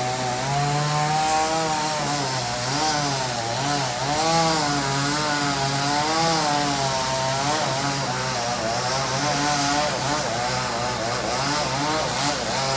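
Chainsaw engine running under the operator's hand, its pitch rising and dipping over and over without stopping.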